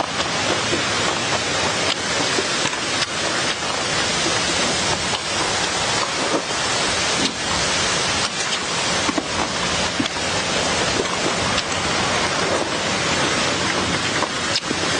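Close-up eating sounds of a man chewing a spicy papaya salad with snails, with frequent short smacks and clicks, and a metal spoon scooping from a tray, all under a steady loud hiss.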